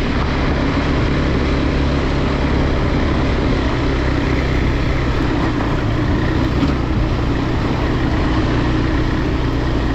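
Motorcycle engine running steadily under load on a steep dirt climb, held on without stopping so the rear tyre keeps its grip, over a steady rush of noise.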